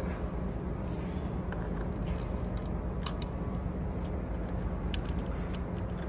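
Scattered small clicks and taps of fingers working at a roof bar's plastic foot clamp to free a Torx bit jammed inside, the loudest near the end. A steady low hum runs underneath.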